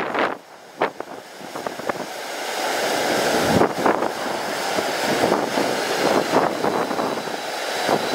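Strong gusty wind buffeting the microphone, over the jet engines of an airliner on approach growing louder, with a faint high whine near the end.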